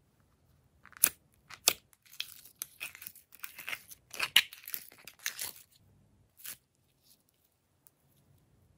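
Pink glitter slime being peeled and pulled out of a plastic heart-shaped tub: two sharp clicks about a second in, then a run of sticky crackling and tearing sounds as the slime comes away from the plastic.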